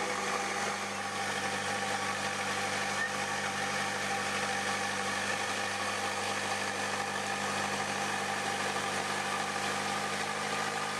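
A boat's engine running steadily at an even speed, with no change in revs.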